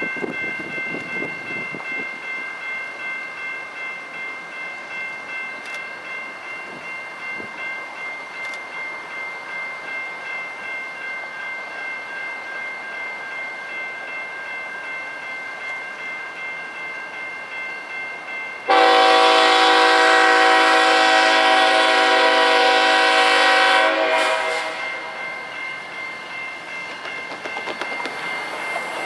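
Freight train locomotives running slowly past, with steady high tones over a low rumble. About two-thirds of the way in, the lead BNSF diesel's air horn sounds one long blast of about five seconds, starting suddenly and then fading.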